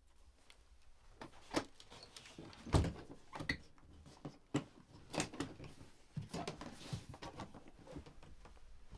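An old hard suitcase being shut and handled on a bed. There is a deep thump about three seconds in as the lid comes down, and a run of sharp clicks and knocks as the case is fastened and lifted.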